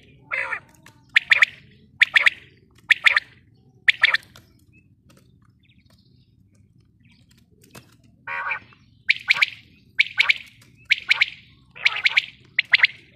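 Female quail calling: short, sharp double-noted calls repeating about once a second, with a pause of about three seconds midway and two lower-pitched calls, one near the start and one about eight seconds in.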